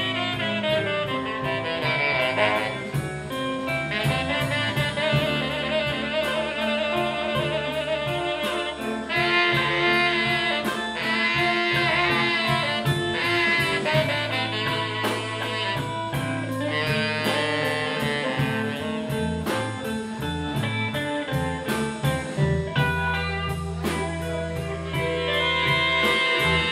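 Live blues band playing a West Side Chicago blues, with saxophone carrying the melody over electric guitar, bass and drums.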